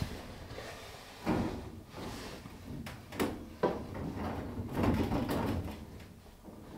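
Gloved hands handling an axe head inside a sandblasting cabinet: irregular knocks of the metal head on the steel mesh grate and scraping and rustling of the cabinet's gloves, with two sharp knocks a little past halfway.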